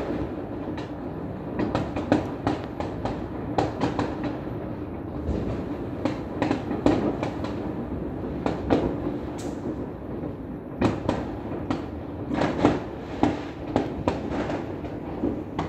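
Fireworks and firecrackers going off all over the city: irregular sharp bangs, sometimes several in a second, over a steady rumble of many distant explosions. The bangs thin out for a moment a little past the middle, then come thick again.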